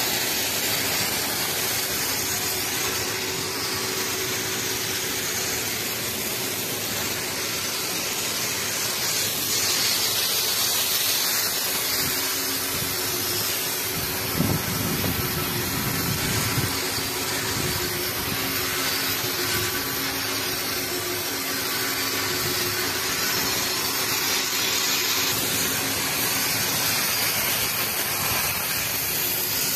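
Battery-powered portable sprayer's pump running while its lance sprays a water jet onto solar panels: a steady spray hiss over a low motor hum. A brief, louder low rumble about halfway through.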